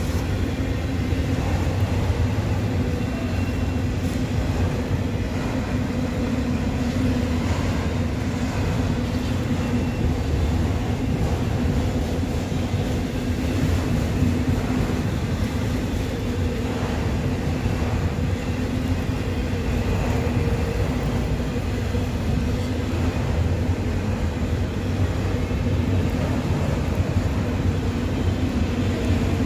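Autorack freight train rolling past with a steady rumble of wheels on rail.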